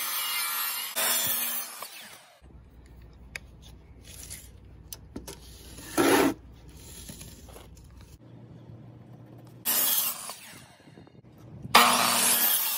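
DeWalt miter saw cutting cedar boards to square their ends: several short cuts of about a second each, the loudest at the start and near the end, with quieter stretches between.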